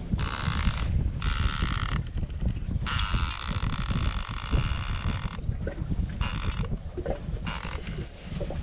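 A big-game conventional fishing reel's drag buzzing in five bursts as a hooked white sturgeon pulls line off it; the longest burst runs about 2.5 s in the middle. A steady low rumble of wind on the microphone lies under it.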